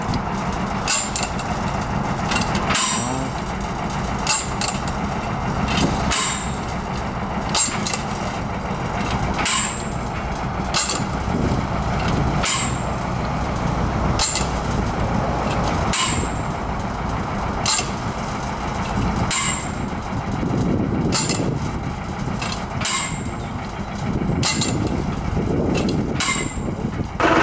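Dando 4000 cable percussion drilling rig at work: its winch engine runs steadily while the drilling tool is lifted and dropped on the cable, giving a sharp clank about every 1.7 seconds.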